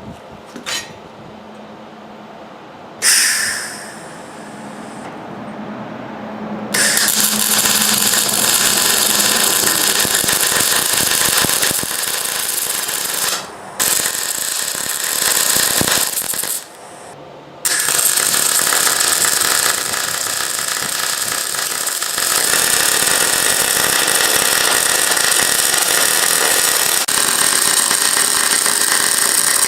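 Angle grinder spinning up about three seconds in with a steady whine, then grinding steel in long passes, stopping briefly twice.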